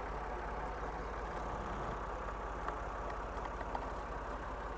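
Tractor engine idling steadily with a low, even throb, and a couple of faint ticks.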